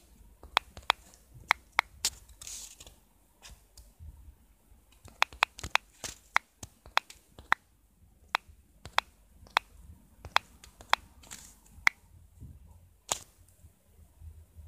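A series of sharp, irregularly spaced clicks, often several in quick succession, like taps while typing a message on a phone, with a few softer hissy sounds between them and one louder click near the end.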